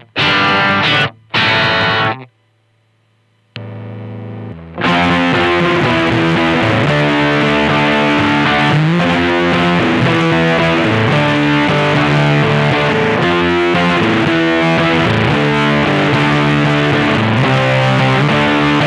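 Electric guitar played through a Mosky BC108 Fuzz Face clone pedal powered at 18 volts: a few short fuzzed chord stabs, a brief pause with a steady low hum from the rig, then continuous fuzzy riffing. The fuzz sustains without the gated, broken sound, but still sounds like a badly biased Fuzz Face.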